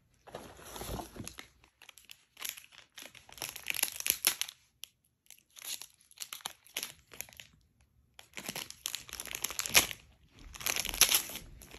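Capuchin monkey crinkling and pulling at plastic snack bags, the wrapper rustling in irregular bursts with short pauses about five and eight seconds in.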